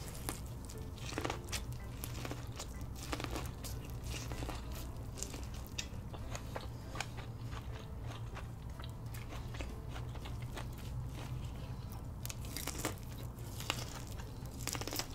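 Close-miked eating sounds: biting and chewing seafood boil food, a continuous irregular run of small crunchy, wet clicks, over a faint steady low hum.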